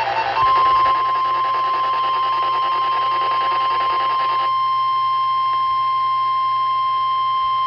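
NOAA Weather Radio 1050 Hz warning alarm tone: one long, loud, steady beep that starts about half a second in and signals that an emergency alert, here a tornado warning, is about to be read. Underneath it for the first half is a fainter warbling sound.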